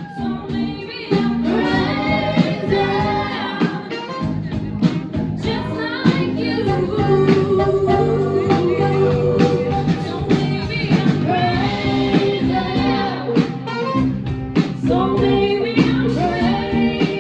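Music: a song with singing voices over instrumental backing with percussion.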